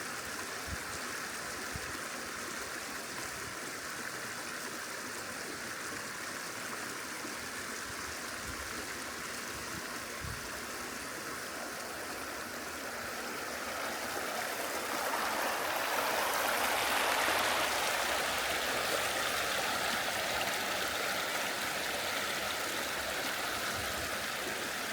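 Mountain stream babbling, a steady rush of running water that swells louder for a few seconds about two-thirds of the way through.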